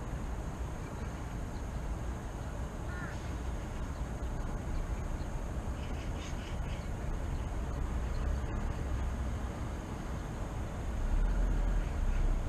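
Steady low rumble of city traffic, louder near the end, with a few short bird calls: one about three seconds in and a quick cluster about six seconds in.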